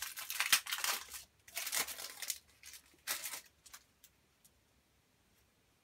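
Foil wrapper of a Match Attax trading card pack being torn open and crinkled in the hands, in several rustling bursts over the first three seconds, then a few faint clicks of the cards being handled.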